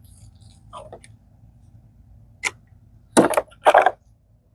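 Small metal bolts and washers being handled. There are a few light clicks, then two short, louder rattling clinks a little past three seconds in.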